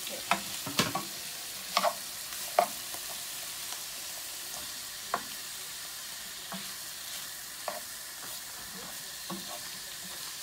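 Mixed vegetables sizzling steadily in a frying pan, with a plastic spoon stirring couscous in a plastic box and knocking against it in a few sharp clicks, most in the first few seconds and one about five seconds in.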